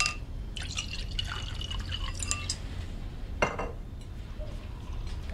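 Wine poured into a wine glass for about two seconds, with a high ringing tone as it fills, then a single clink of glass on a hard surface about three and a half seconds in.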